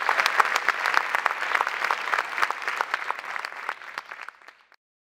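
Theatre audience applauding, the clapping thinning out and fading away about four and a half seconds in.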